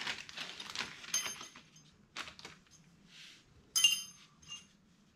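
Rustling handling noise, then short metallic clinks with a brief ring: one about a second in, a louder one just before four seconds, and a smaller one just after it.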